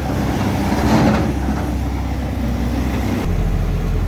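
Loaded dump truck's engine running, heard from the cab, with a rattling swell about a second in; the low engine note changes about three seconds in.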